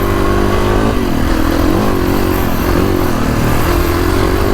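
Kawasaki KX450X's single-cylinder four-stroke engine running at part throttle on the trail, its pitch rising and falling a little as the throttle is worked. It is running on the soft-map DFI coupler.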